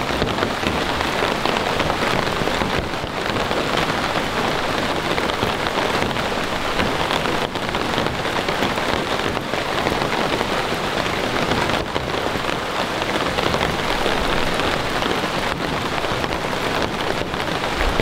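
Steady rain falling, with many close individual drops striking.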